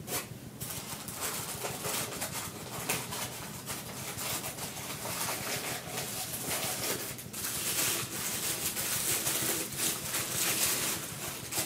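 Continuous irregular rustling with many small clicks: hands handling the statue's parts and their packaging.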